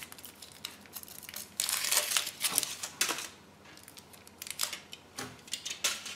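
Thin foil wrapper of a Kinder Surprise chocolate egg being peeled off by hand: irregular crinkling and rustling in bursts, loudest about two seconds in, with more crinkles near the end.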